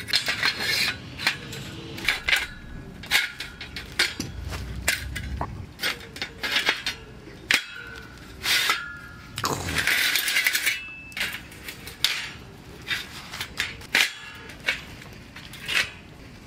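Metal barbecue grill grate being handled and fitted together: irregular clinks, clanks and scrapes of steel parts knocking against each other, some leaving a short metallic ring.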